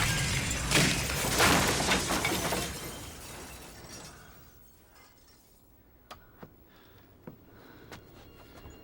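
Glass shattering and debris crashing down in a loud, noisy cascade with several sharp impacts, fading over about three seconds. A few scattered tinkles of falling pieces follow.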